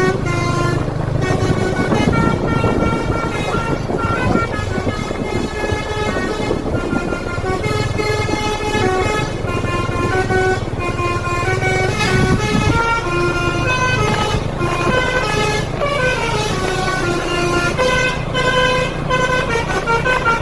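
Telolet basuri multi-tone musical air horn playing a melody of short stepped notes, with a falling glide of notes about sixteen seconds in, over a steady low engine hum.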